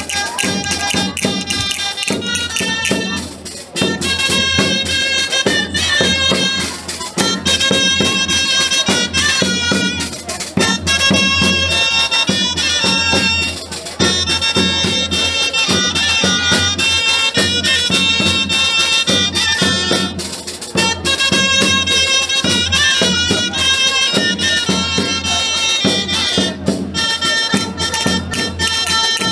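Traditional folk music: a shrill wind melody over steady rhythmic percussion, phrase after phrase.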